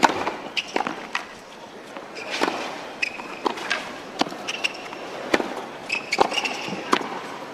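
Tennis rally on a hard court: a serve, then rackets striking the ball and the ball bouncing, in a run of sharp pops every half second to a second, with short high squeaks from shoes between some of the hits.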